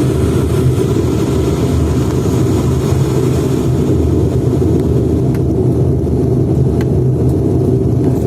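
Bombardier Dash 8 Q400's twin Pratt & Whitney PW150A turboprop engines running at high power, a loud steady deep drone heard inside the passenger cabin.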